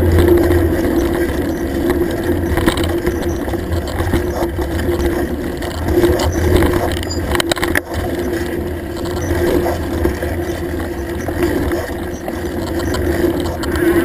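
Mountain bike riding over a rough dirt trail, heard through a handlebar-mounted camera: a steady rumble and rattle from the bike and tyres, with a couple of sharp knocks about halfway through.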